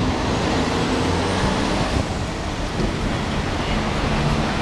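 Busy downtown street traffic: a steady low hum of idling engines from vehicles stopped at the intersection, over the general roar of city traffic.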